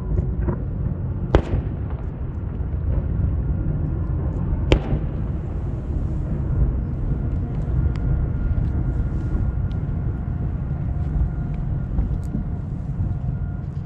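Aerial firework shells bursting: two loud sharp booms, about a second and a half in and again near five seconds, then a few fainter cracks later on, over a steady low rumble.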